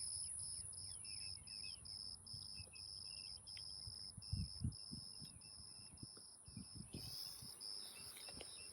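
Insects chirping in an even pulsing rhythm, about two or three pulses a second, over a steady high buzz. Faint bird chirps come through, and a few low thumps sound about halfway through.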